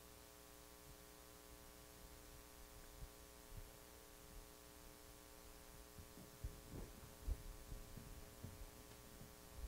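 Near silence: a steady electrical hum in the room's sound system, with a few faint low bumps and knocks in the second half.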